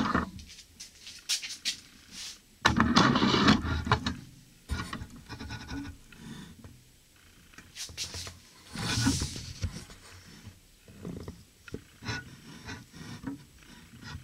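Handling noises at a workbench: rubbing, scraping and scattered knocks as a starter motor is clamped in a bench vise and the camera is moved. The loudest stretch is a dense rubbing scrape lasting about two seconds, a few seconds in.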